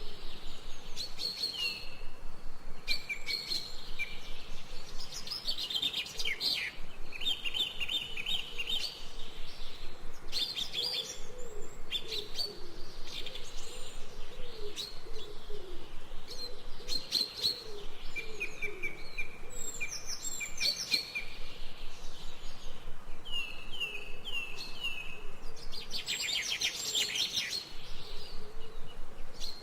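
Songbirds chirping and trilling continuously: overlapping quick runs of short, repeated high notes, with a faint lower wavering call underneath for much of the time.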